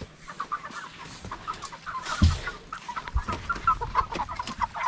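Chickens clucking as they are caught and handled in their pen, with short calls throughout, a dull thump about two seconds in and a lighter one a second later.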